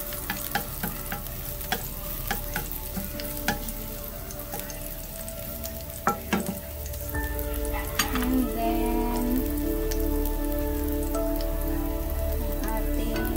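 Ginger strips sizzling in a little oil in a non-stick pan, with a wooden spatula knocking and scraping against the pan as they are stirred. Soft background music comes in about halfway through.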